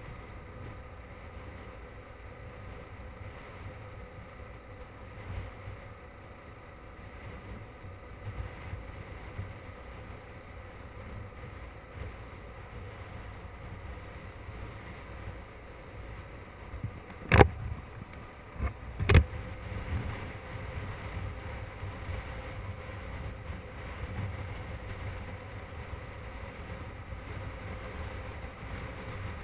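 Motorcycle riding along a road: steady engine hum under rumbling wind buffeting on the microphone. About two-thirds of the way through come two sharp knocks under two seconds apart, the loudest sounds in the stretch.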